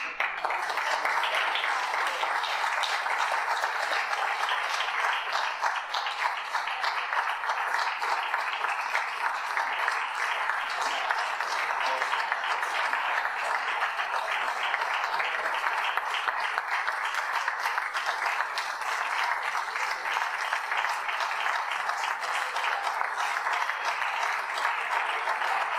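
Audience applauding steadily: many hands clapping together in an even, unbroken patter.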